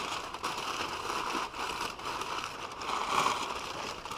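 Crumpled brown packing paper crinkling and rustling continuously as it is pulled and unwound from around a new exhaust pipe.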